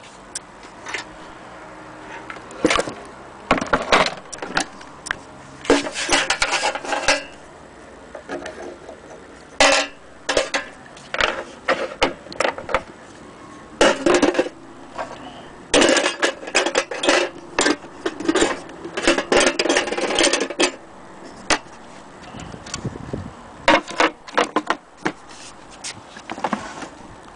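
An old wooden gramophone cabinet being handled: irregular clusters of clicks, knocks and rattles as its wooden case and metal fittings are moved and touched, with short quieter gaps between.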